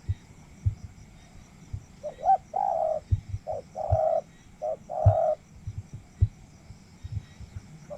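Spotted dove cooing: three phrases about a second apart, each a short note followed by a longer coo, beginning about two seconds in. Faint low knocks are scattered through it.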